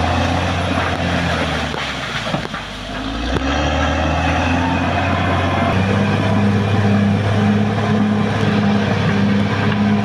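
Caterpillar D6R XL bulldozer's diesel engine running as the tracked machine drives forward pushing soil. The engine note dips about two seconds in, then picks up again and grows stronger about six seconds in.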